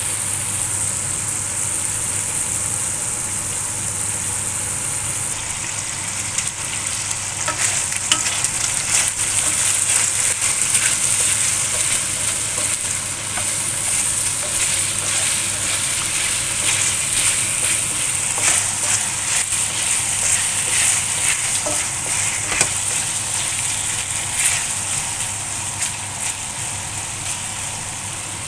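Marinated chicken wings sizzling in hot oil in a stainless-steel pan, a steady hiss with scattered crackling pops that grow busier about a quarter of the way in. A spatula scrapes and turns the wings in the pan.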